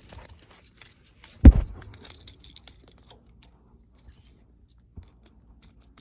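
Fumbling one-handed to plug a metal D-sub cable connector into a small circuit board: one loud thump about one and a half seconds in, then scattered light clicks and rattles of the connector shells.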